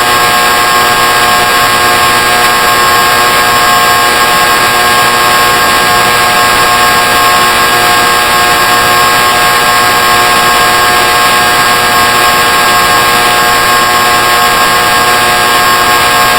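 A loud, steady buzzing tone with many overtones, unchanging throughout.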